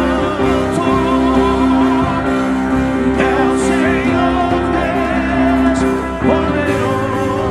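Worship music: a voice singing long, wavering notes over steady, sustained keyboard chords.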